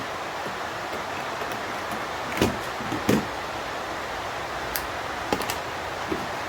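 Light knocks and clicks of small parts and tools being handled during hand dismantling, the two loudest about two and a half and three seconds in, with a few fainter ticks later, over a steady background hiss.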